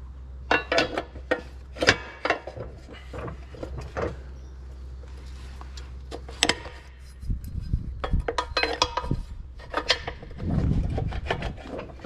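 Irregular metal clicks, clinks and scraping as a disc-mower blade is levered free with a blade-change lever, turned over and refitted, with a few ringing metal taps about two thirds of the way through.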